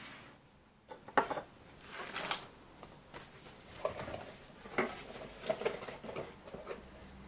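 A camera lens and its soft pouch being handled and set down on a desk: a sharp click about a second in, then scattered lighter clicks and knocks.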